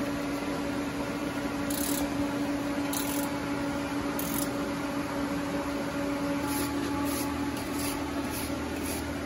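Induction heater humming steadily as it heats a steel bar in its coil. Short scratchy hisses come a few times, then faster near the end as a wire brush scrubs scale off the glowing bar.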